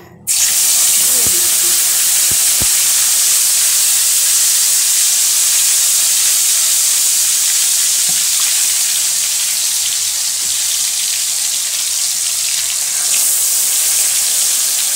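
Marinated mutton hitting hot oil in a metal kadai: a loud sizzle starts suddenly just after the start and carries on steadily as the meat fries.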